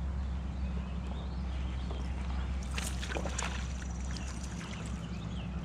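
A hooked fish splashing briefly at the water's surface about three seconds in, over a steady low hum.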